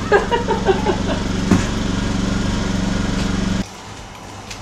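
A small engine runs steadily at an even pitch, then cuts off abruptly about three and a half seconds in.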